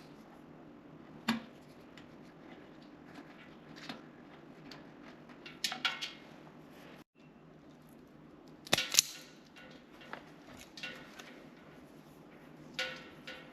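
Scattered clicks and metallic clanks of hand tools and metal electrical fittings being handled, a few ringing briefly, the loudest pair just before halfway through the second half, over a faint steady hum.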